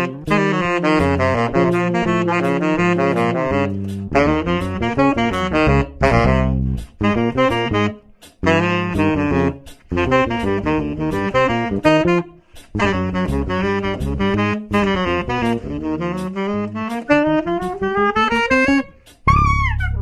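Selmer Super Balanced Action tenor saxophone and electric bass playing fast jazz lines together, quick runs of short notes broken by brief gaps. Near the end they land on a final held saxophone note with vibrato over a low bass note.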